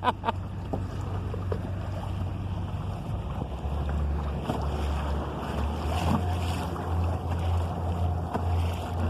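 Wind buffeting the microphone in an uneven low rumble, over water splashing against a sailing canoe under way.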